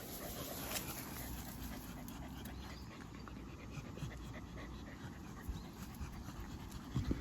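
A Shiba Inu panting quietly with its mouth open, the breathing of a dog's 'laugh', with a short louder huff near the end.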